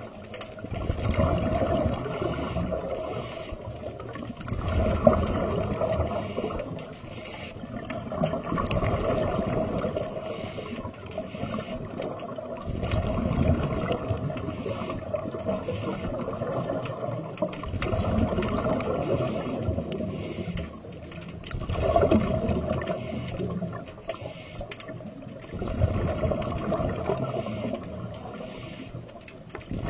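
Small sea waves washing in and draining back, each surge rising and fading about every four seconds.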